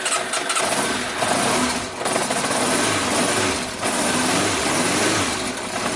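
Yamaha Diversion's four-cylinder engine running just after starting, the revs rising and falling. It is running with the fuel pump disconnected, on the fuel left in carburettors whose floats had been sticking and flooding.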